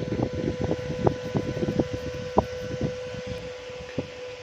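A steady, high-pitched electrical hum from repair-bench equipment, with irregular light clicks and scrapes, a few a second, as a phone's charging jack is cleaned and handled.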